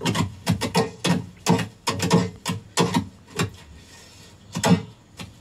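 Hands slapping and crushing stacks of cooked parottas against a table to loosen their layers: a run of irregular soft thumps, two or three a second, thinning out after about three and a half seconds, with one louder thump near the end.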